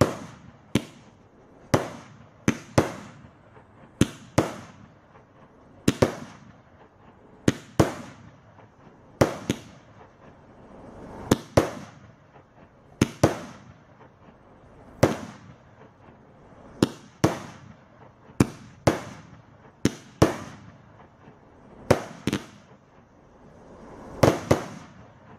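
Fireworks cake, a battery of nineteen 1.2-inch tubes, firing shot after shot: sharp bangs, mostly in close pairs, about every one and a half to two seconds, each trailing off in echo.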